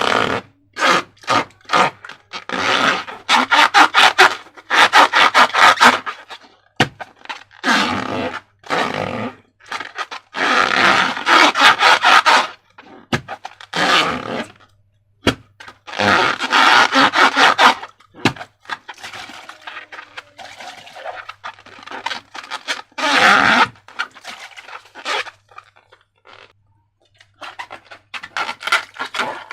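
Slime being worked by hand: repeated crackling, squelching strokes of a second or two each, with short pauses between them, growing quieter and more broken near the end.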